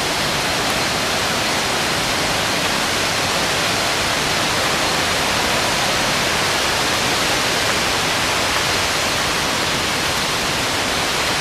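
Thi Lo Su waterfall's falling water making a steady, even rush that holds at the same level throughout.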